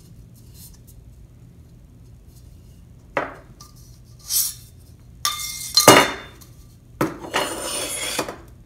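Thin titanium wood-burning stove sections clinking, knocking and scraping against each other and on a wooden tabletop as the two parts are set down and fitted together. After a quiet start come a few sharp metallic knocks, the loudest about six seconds in, then a longer scrape as one section slides onto the other.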